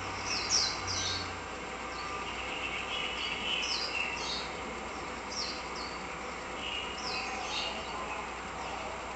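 Small birds chirping repeatedly, short high chirps every half second to a second or so, over a steady background of outdoor ambient noise with a faint low hum in the first second or so.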